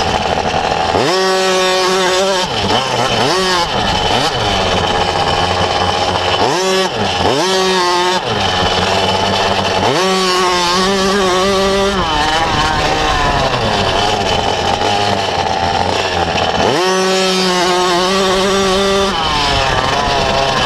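Engine of a 50cc motocross bike, close to the handlebars, revving hard while riding. Its pitch climbs steeply about five times as the throttle opens and holds high between climbs.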